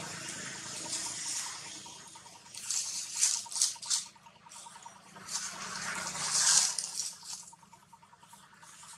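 Dry leaves rustling and crackling as monkeys move about, in two bursts, one about three seconds in and one about six seconds in.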